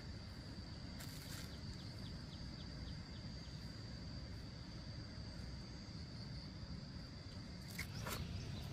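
Outdoor ambience: a steady high-pitched insect drone over a low rumble, with a couple of clicks about a second in and a few knocks near the end.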